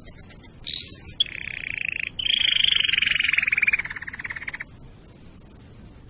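Domestic canary singing: a quick run of high notes, a rising sweep, then two fast rattling trills (rolls) at a lower pitch. The second trill is longer and slowly falls in pitch, and the song breaks off about two-thirds of the way in.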